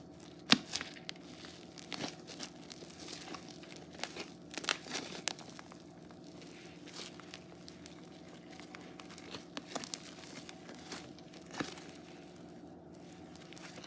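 Crunchy foam slime, thick slime packed with tiny foam beads, squeezed and kneaded by hand, giving irregular crackling and popping as the beads crunch. One sharp pop stands out about half a second in, and a dense run of crackles comes around the middle.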